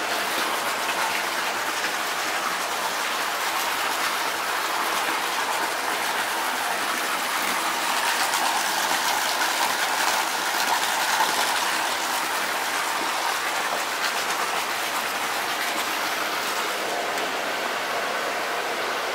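Steady rush of hot-spring water pouring into a tiled bath, a little louder about eight to eleven seconds in.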